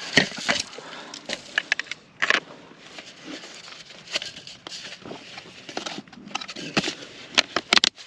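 Corrugated plastic drainage tile being handled and pushed into a snap-in tap tee, giving irregular sharp clicks, crinkling and scraping of the plastic ribs.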